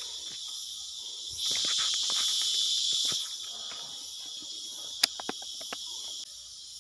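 Steady high-pitched buzzing of an insect chorus that swells louder for about two seconds, over light crackling of dry leaves underfoot, with one sharp click about five seconds in.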